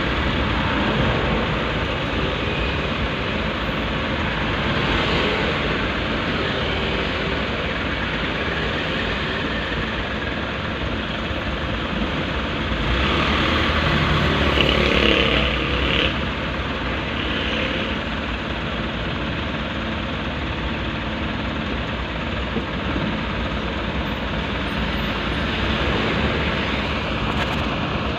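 Steady engine and road noise heard from inside a car's cabin in slow traffic, a low rumble with hiss. It swells for a few seconds around the middle, as of a vehicle passing close by.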